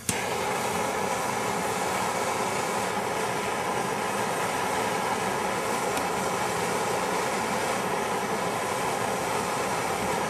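Steady rushing hiss of fire from a hand-held gas torch played on a pile of potassium perchlorate and aluminium flash composition, starting abruptly and holding even with no bang. The pile burns with sparks instead of exploding.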